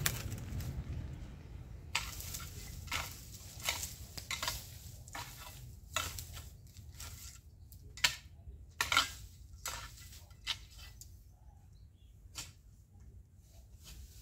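Dry grass, twigs and debris crunching and scraping in short irregular bursts under footsteps and a long-handled garden tool dragged over the ground, thinning out after about ten seconds.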